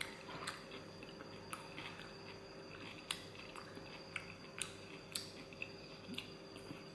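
Quiet eating sounds: a plastic fork picking through a cabbage and onion salad in a takeaway container, with scattered light clicks, and chewing. A faint steady hum lies underneath.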